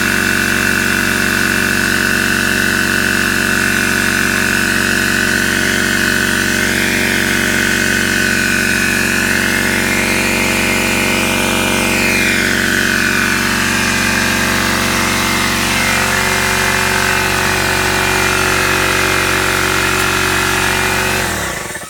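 Air compressor motor running steadily while topping off a car tire, then shut off suddenly near the end.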